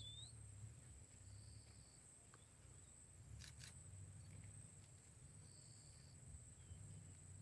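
Near silence: faint outdoor ambience with a low steady hum and a thin high steady tone, a short chirp right at the start, two faint brief trills, and a pair of faint clicks about halfway through.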